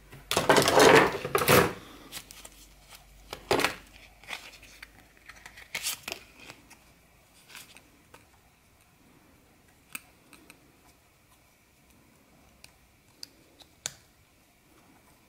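Folding knives clattering against each other as hands rummage through a pile of them, loudest in the first two seconds. This is followed by scattered sharp clicks as a credit-card folding knife is handled and folded.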